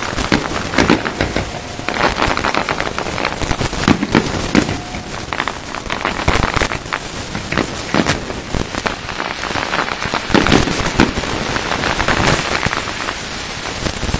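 Aerial fireworks crackling densely, a rain-like stream of rapid pops from crackling stars, with louder bursts from shells breaking every second or two.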